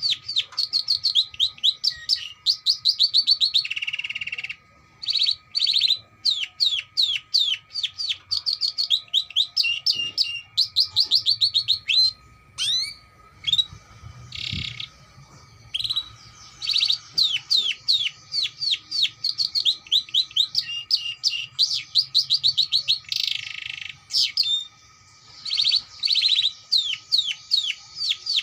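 Domestic canary singing: long fast trills of repeated down-sweeping notes, several each second, broken now and then by a short buzzy roll.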